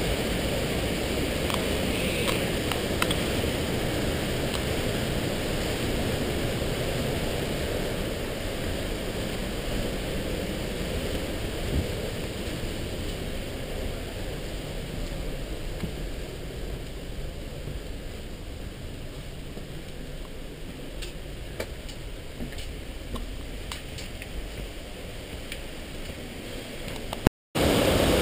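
Rushing water of a mountain stream in a rocky gorge, a steady noise that fades somewhat through the middle, with a few faint clicks of footsteps on rock. The sound cuts out for a moment near the end and comes back louder.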